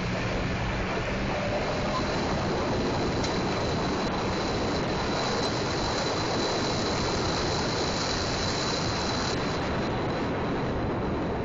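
Steady, dense running noise inside the cabin of a 1972 Chevy school bus being raced around a short oval: engine and rushing wind noise with no break.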